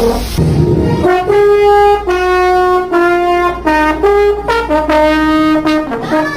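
A person imitating a trumpet with her voice, buzzing out a run of about ten short held notes that step up and down in pitch like a brass melody.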